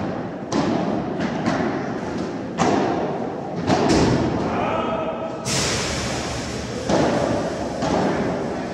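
Padel rally: the ball is struck by solid paddle rackets and bounces on the court, a string of sharp hits about every half-second to second, echoing in a large indoor hall.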